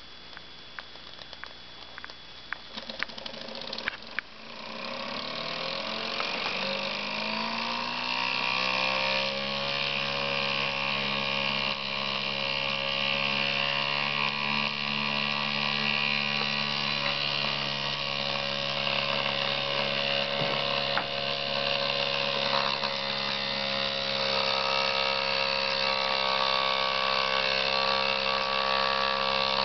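Philcraft "Lilliput" miniature steam engine: after a few sharp clicks it starts to whir, rising in pitch for about five seconds as it gathers speed, then running steady at speed.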